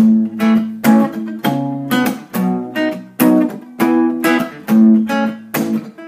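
Acoustic guitar strummed in a steady rhythm, the instrumental opening of a song before the vocals come in.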